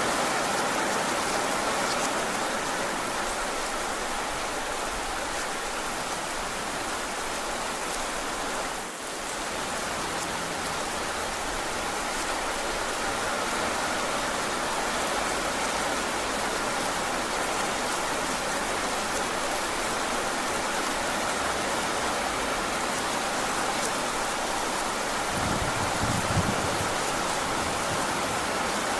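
Heavy rain falling steadily, hissing and pattering on surfaces, with a brief dip in level about nine seconds in. A short low rumble comes near the end.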